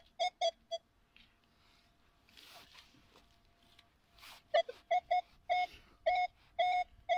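Handheld metal detector beeping on a buried metal target as its coil sweeps over a freshly dug hole: short, same-pitched beeps. A quiet stretch in the middle holds a couple of soft scuffs of soil, then the beeps return about twice a second and grow longer toward the end.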